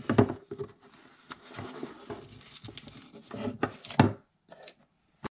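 Light knocks and rubbing as a small wooden canvas frame is handled and shifted on a tabletop, the loudest knocks just after the start and about four seconds in.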